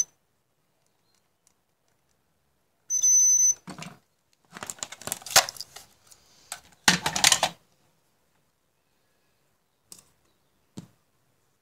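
DT9205A digital multimeter's continuity buzzer giving one steady high beep for about half a second as the probes touch the component leads. It is followed by louder rustling and handling noise as the meter and leads are moved away, and two light clicks near the end.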